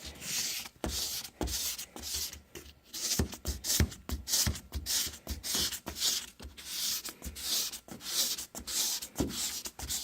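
Restoration-kit pad rubbed back and forth by hand over a foggy plastic headlight lens, a rhythmic scrubbing hiss at about two strokes a second.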